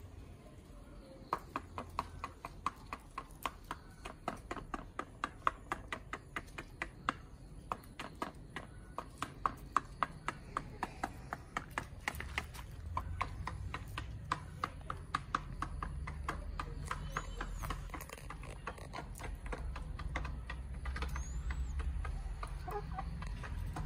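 Hens pecking at a red plastic dish, their beaks tapping on it in a quick, uneven run of sharp clicks, about two or three a second, that thins out in the last third. A low rumble builds in the second half.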